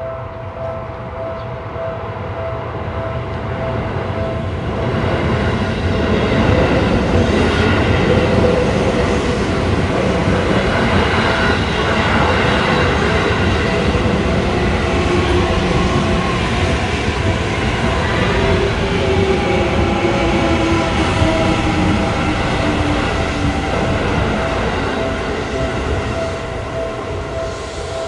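Japanese level crossing bell ringing in a steady repeated clang as an electric commuter train passes. The train's rumble builds over the first several seconds, stays loud for most of the passage with a tone sliding down in pitch partway through, then eases toward the end while the bell keeps ringing.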